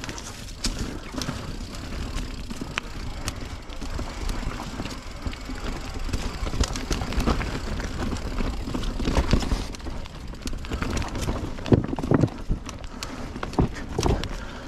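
Mountain bike riding over a dirt trail: tyre noise under a steady low rumble, with frequent irregular knocks and rattles from the bike going over bumps, thickest in the second half.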